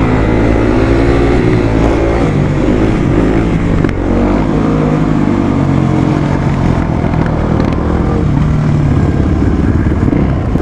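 Supermoto motorcycle engine running under way, its revs rising and falling as the bike accelerates and shifts, with low wind rumble on the microphone.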